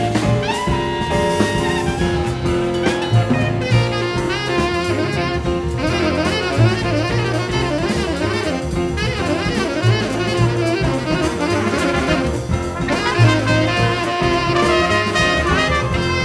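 Acoustic jazz quintet playing: tenor saxophone and trumpet lines over double bass, drum kit and piano.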